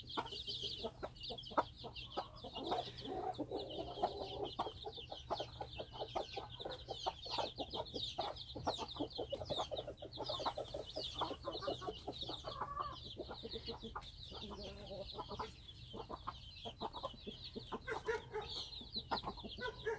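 A brood of chicks peeping in a continuous high chorus. A Cheonggye hen clucks lower among them now and then.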